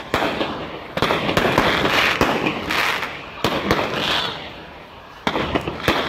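Aerial fireworks bursting overhead: about seven sharp bangs a second or so apart, with a dense noisy fizz between them that dies down briefly just before the last two bangs.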